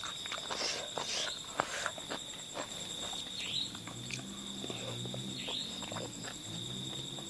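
Close-up eating sounds of a person eating rice and fish curry by hand: chewing, wet lip smacks and small clicks. Underneath runs a steady high-pitched tone, like a cricket or insect at night.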